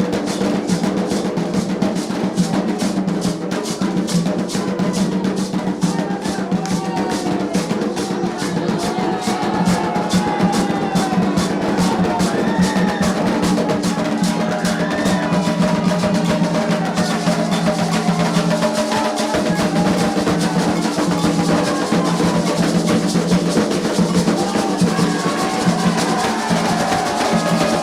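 Music with fast, dense drumming and steady low tones, with singing voices over it.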